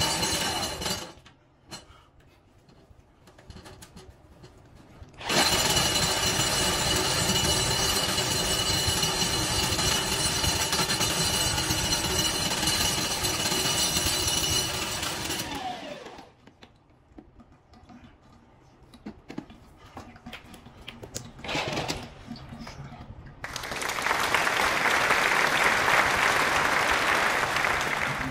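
Milwaukee M18 cordless drain snake running, its motor whining steadily as the cable spins in the bathtub drain to clear a hair clog; it runs for about the first second, stops, then runs again for about ten seconds. Near the end a steady rush of running water.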